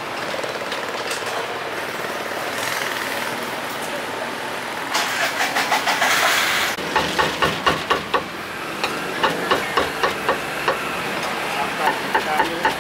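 Street traffic with motorbike and auto-rickshaw engines running. About two-thirds of the way through this gives way to a meat cleaver chopping braised meat on a wooden block, in quick even strokes of about three or four a second.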